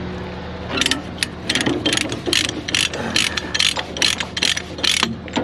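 A metal ratchet being worked in quick, regular strokes, about three clicks a second, starting about a second in, with an engine idling steadily underneath.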